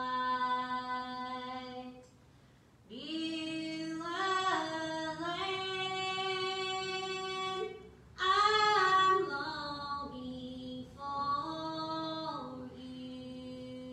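A woman singing a slow church song solo, holding long notes. She breaks off briefly about two seconds in and again near eight seconds before going on.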